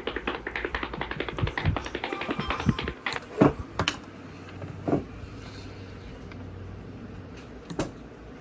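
A quick run of light taps and clicks for about three seconds, then a few separate knocks, over a low steady hum.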